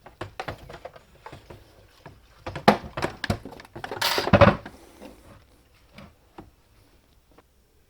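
Handling noises as a brushcutter is turned over: a string of knocks and clatters, the loudest about two and a half seconds in, then a half-second scraping rustle about four seconds in.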